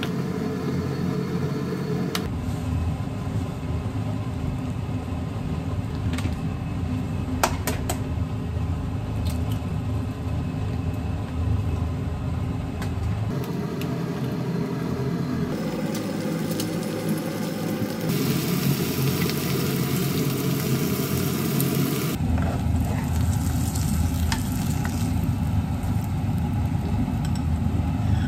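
Eggs and ham frying in a pan on a gas stove: a continuous sizzle over a low rumble. It shifts abruptly several times and is hissiest for a few seconds just past the middle, with a few sharp clicks of a utensil against the pan.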